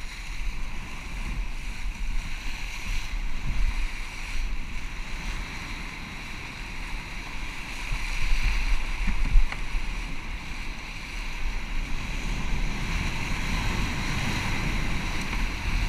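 Rushing whitewater around a kayak hull riding a wave in through the surf, with wind buffeting the microphone. It swells for a couple of seconds about halfway through and builds again near the end.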